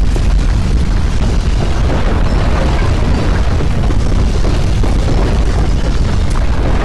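Loud, steady deep rumble of simulated earthquake ground shaking, with no break or change.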